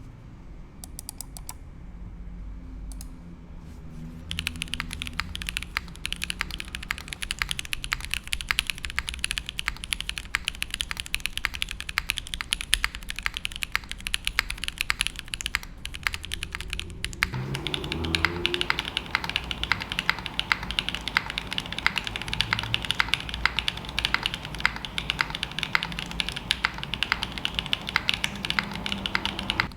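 Fast, continuous typing on a custom mechanical keyboard with GMK keycaps and lubed linear switches (TKD v1 stems in Cherry Hyperglide Black housings with 63.5 g springs) on an aluminium plate with no foam. The typing starts about four seconds in, and the clacks sound fuller from partway through.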